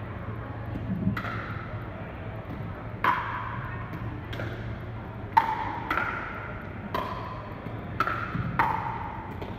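A pickleball rally: paddles hitting the hard plastic ball, with some bounces, in about eight sharp pocks at an uneven pace, each ringing and echoing in a large sports hall. The loudest hit comes about halfway through. A steady low hum runs underneath.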